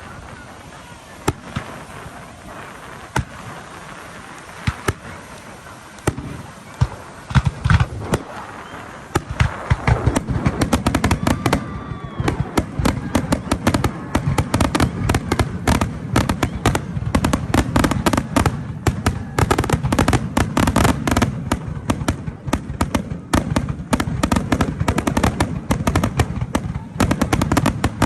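Fireworks going off: scattered single bangs for about nine seconds, then a dense, rapid barrage of bangs and crackling.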